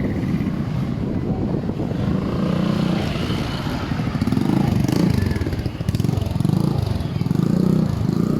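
Motorbike engines running close by on a busy street, their pitch rising and falling as they move and rev.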